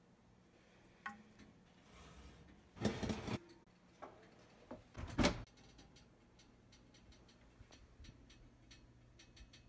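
Oven rack and glass baking dish being handled: a few light clicks, a noisy scrape of about half a second some three seconds in, and a sharper clack a little after five seconds. Then fine, faint crackling ticks from the chicken baking in the hot oven.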